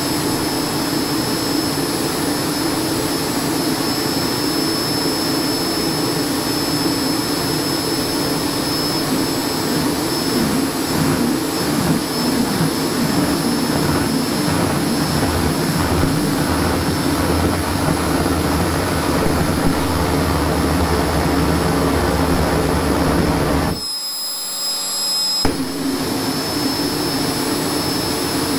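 Homemade propane-fuelled jet engine with an electrically driven 3D-printed centrifugal compressor running steadily: a loud roar of air and combustion under a steady high whine. Partway through, a deeper combustion rumble builds as flame shows at the exhaust. Near the end the sound dips briefly for under two seconds, then the steady running returns.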